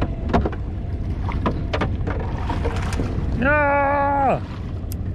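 Wind and water noise on a small open boat, with scattered light knocks. About three and a half seconds in, a loud tone held at one pitch for about a second, gliding up at the start and dropping away at the end.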